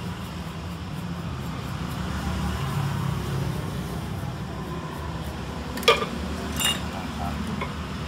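Two sharp clinks of small hard objects set down on a workbench, about a second apart, each with a brief ring, over a steady low hum.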